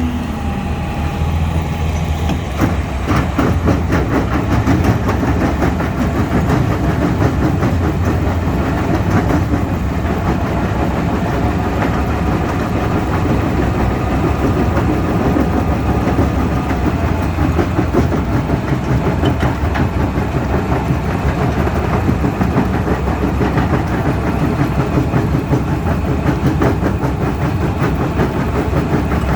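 A Rockcrusher 11R crusher bucket on a Cat 336E excavator crushing rock: a dense, continuous rattle and clatter of stone against the steel jaws, over the excavator's diesel engine running steadily under load. It grows a little louder a couple of seconds in.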